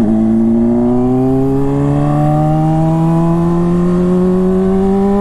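Honda CBR600RR inline-four running through an aftermarket Toce exhaust, pulling in one gear with the revs climbing slowly and steadily.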